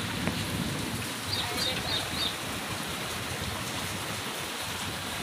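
Muddy floodwater flowing over the ground, a steady rushing. Four short high chirps come about a second in.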